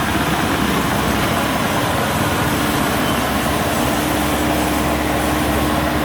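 Kubota WD102PRO rice combine harvester's diesel engine running steadily as the machine drives along the road, with a steady hum joining in about halfway through.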